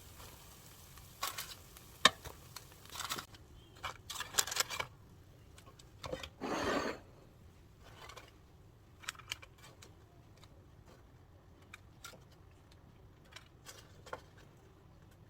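Kitchen handling sounds: scattered clicks, taps and short scrapes of utensils against dishes, with one longer scrape about six and a half seconds in.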